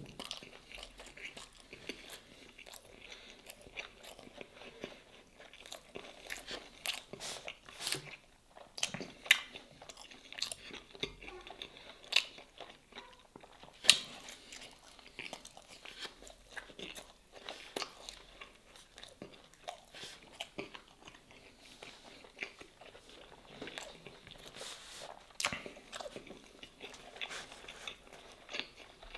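Close-miked person biting and chewing soft cheese-stuffed baked bread, a steady run of small bites and chewing noises. The sharpest and loudest bite comes about halfway through.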